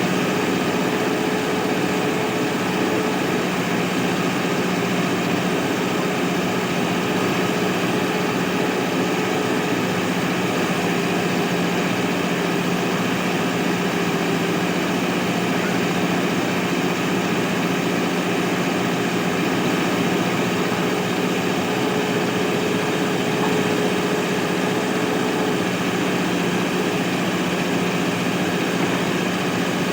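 Mahindra backhoe loader's diesel engine running steadily at an even pitch.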